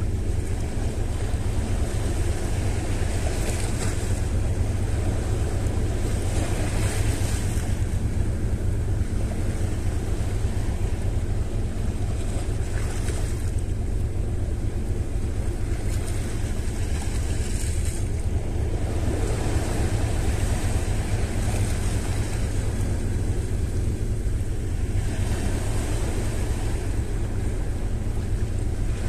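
Sea waves washing onto the shore, swelling every few seconds, under a steady low rumble of wind on the microphone.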